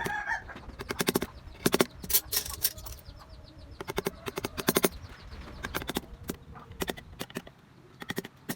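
Hand wood-carving tools tapping into wood: quick clusters of sharp taps, several in a row, repeating every second or so.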